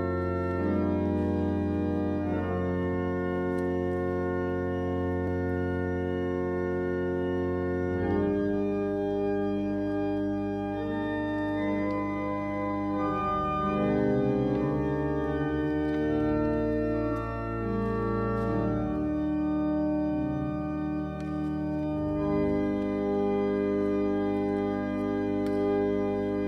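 Church organ playing slow, held chords over deep pedal bass notes, the chords changing every few seconds: the opening voluntary of the service.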